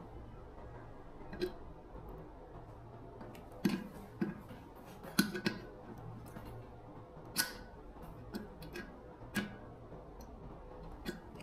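Irregular sharp clicks and light knocks of tools and small parts being handled during a repair, about ten over the span, with a few close together around the middle, over a faint steady low hum.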